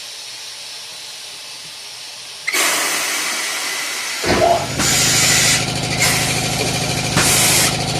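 Compressed air blasting into a stretched tire on a tire changer as the first air goes in to seat the bead, starting suddenly about two and a half seconds in. About four seconds in a motor starts running steadily, with further loud blasts of air over it.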